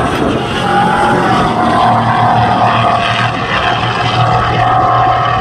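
A pack of Stadium Super Trucks' V8 racing engines running hard at speed as the trucks race past. The engine note is a loud, steady drone that holds much the same pitch throughout.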